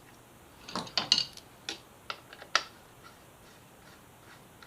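Light metal clinks and clicks as a motorcycle gear shift lever is fitted onto its rear-set bracket: a quick cluster about a second in, then three or four single clicks.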